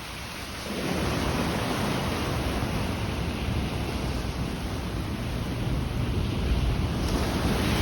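Ocean surf breaking and washing along the shore: a steady rushing noise with a deep low rumble, growing louder about a second in.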